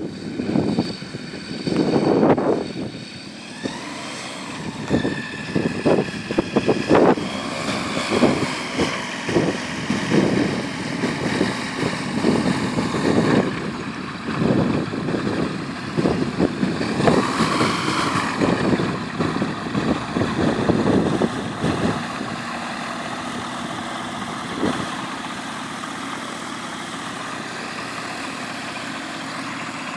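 Ikarus C42 microlight's engine and propeller running at low power as it taxis on grass, uneven and surging at first, then settling to a steady idle for the last third.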